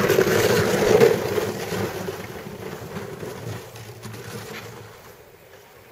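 Plastic saucer sled hissing and scraping over packed, icy snow, loudest in the first second as it passes close, then fading away as it slides off down the run and slows to a stop.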